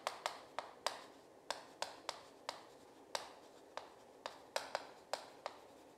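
Chalk writing on a chalkboard: a quick irregular string of sharp taps, about three a second, with light scratching between them as the characters are written.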